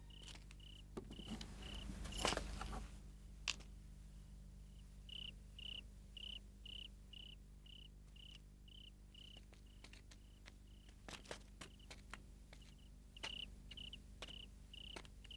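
Faint cricket chirping at about two chirps a second, with a few soft rustles and clicks, the loudest rustle about two seconds in.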